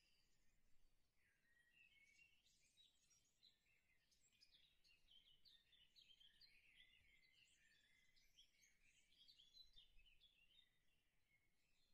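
Near silence: very faint room tone with a thin, high-pitched chatter throughout.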